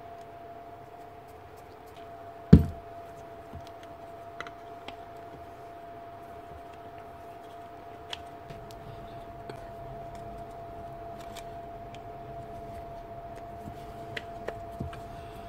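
Small clicks and knocks of plastic motor and switch parts and a screwdriver being handled on a workbench, with one sharp, louder knock about two and a half seconds in. A steady hum runs underneath.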